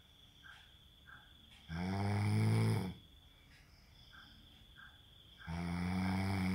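A man snoring: two loud, low-pitched snores, each about a second long and about four seconds apart, with quiet between.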